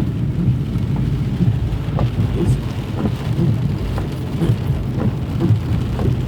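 Inside a moving car in the rain: a steady low rumble of engine and tyres on the wet road, with scattered light ticks of raindrops hitting the car.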